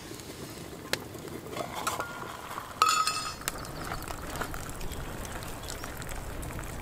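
A few sharp campfire crackles, then a ringing metal clink about three seconds in, followed by water pouring steadily from a metal pot into a metal mug.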